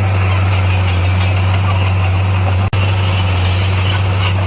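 Heavy diesel engine of earthmoving equipment running steadily at a constant speed, a deep even hum. The sound drops out for an instant a little over halfway through.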